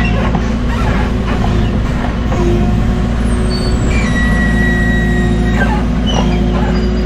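Heavy equipment engine running steadily, with short high metallic squeals and a held high-pitched squeal about four to five and a half seconds in.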